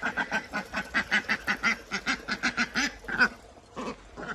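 Ducks quacking in a fast, even run of about six or seven quacks a second, which breaks off about three seconds in, leaving a few single quacks.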